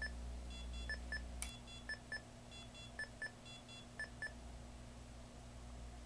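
ELK M1 alarm keypad sounding its exit-delay countdown: short double beeps about once a second, which stop a little over four seconds in as the exit time runs out. A single faint click comes about a second and a half in.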